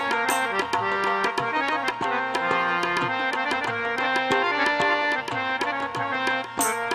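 Instrumental folk music: quick, steady tabla strokes under a melody of held notes, with no singing.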